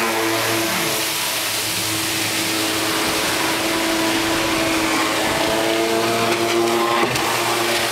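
Engines running on open water: a steady engine hum with several pitches over a wash of water and wind noise, while a Sea-Doo personal watercraft circles close by. A falling pitch in the first second is the watercraft's engine sweeping past, and a short click comes near the end.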